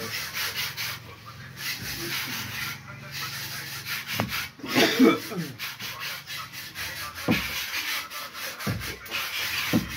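Scratchy rubbing and rustling noise close to the microphone, with a few dull thumps scattered through and a brief low falling sound about five seconds in.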